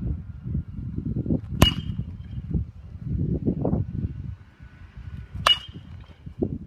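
Two cracks of a baseball bat hitting balls in batting practice, almost four seconds apart, each with a brief ringing ping.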